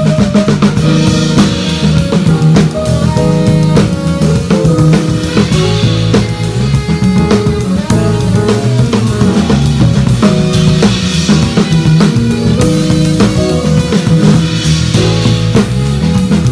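Live band playing funk-style groove music: a drum kit keeping a steady beat with bass drum and cymbal washes every few seconds, under a busy electric bass line and other instruments.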